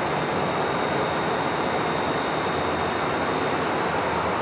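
Two Siemens Charger diesel locomotives idling while the train stands still: a steady, even engine noise with a thin, constant high whine over it.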